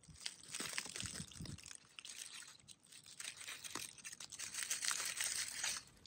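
Faint, irregular dry crackling and crunching, stopping just before the end.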